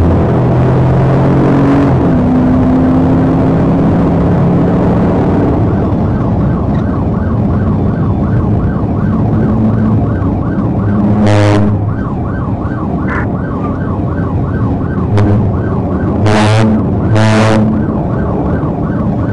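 Police cruiser siren on a fast yelp, rising and falling two to three times a second, starting about six seconds in, over the cruiser's engine and road noise as it accelerates to highway speed. Three brief whooshes of oncoming vehicles passing cut across it, the last two close together near the end.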